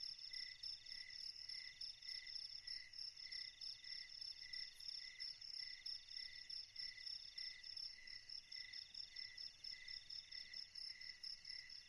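Faint night chorus of crickets and other insects chirping: one slow, even chirp about twice a second, a faster chirp higher up, and a continuous trill between them.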